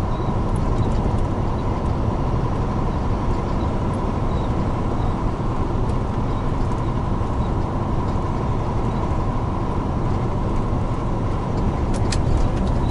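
Large truck's diesel engine drone and road noise at steady cruising speed, heard inside the cab, with a thin steady tone running through it. A few light clicks near the end.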